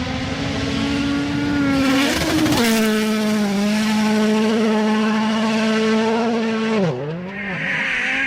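Engine running at steady high revs, its pitch dipping sharply and recovering about seven seconds in.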